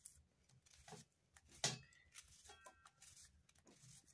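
Faint, irregular clicks of a knife cutting through an onion held in the hand, the sharpest about a second and a half in. A hen clucks briefly past the middle.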